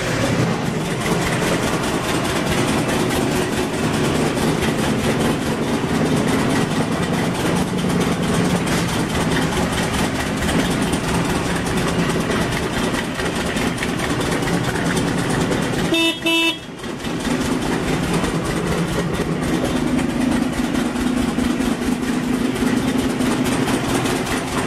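Buell Lightning XB12 STT's 1203 cc air-cooled V-twin running steadily, with the motorcycle's horn giving two short beeps about two-thirds of the way through.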